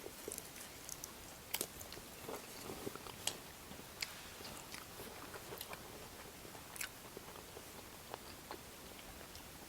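People eating rice and fried chicken legs: faint chewing with scattered sharp mouth clicks and smacks.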